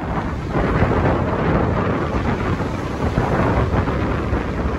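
Strong wind buffeting the microphone in a loud, steady rumble, over a choppy sea breaking on a shingle beach.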